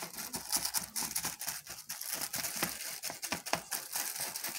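Plastic bag lining a bowl crinkling and rustling as gloved hands press a soft filling down into it: a dense run of irregular small crackles.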